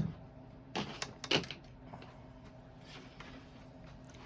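Two short clattering handling sounds from an aluminum camper window frame, about half a second apart and a second or so in, followed by quiet room noise.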